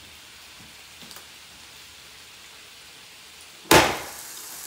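The lid of an electric contact grill slammed shut onto strips of bacon with one sharp clack near the end, after which the high sizzling hiss of the bacon is louder than before. A couple of faint clicks come about a second in.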